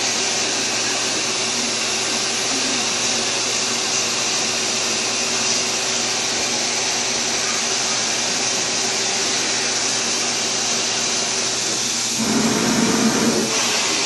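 Vacuum cleaner running steadily, sucking through its hose nozzle held against a long-haired cat's fur. A brief louder, lower sound comes near the end.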